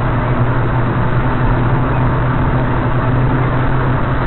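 Steady engine and tyre noise inside a car's cabin while driving on the highway, a constant low drone with no sudden sounds, heard through a dashcam's microphone.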